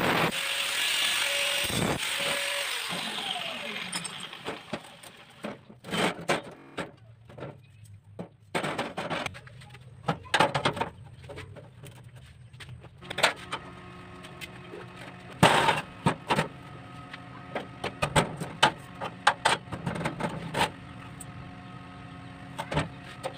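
An angle grinder winds down after cutting steel square tubing, its noise fading over the first few seconds. Then comes a string of sharp clanks and knocks as steel tubes are set down and shifted on a steel work table. From about halfway a steady hum with several tones runs underneath.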